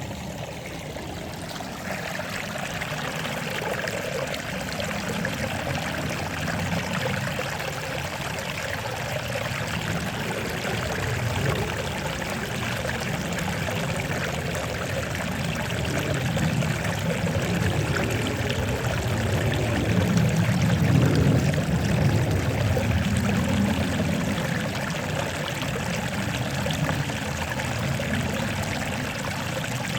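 Water flowing and trickling in a steady rush, like a small stream, swelling slightly about two-thirds of the way through.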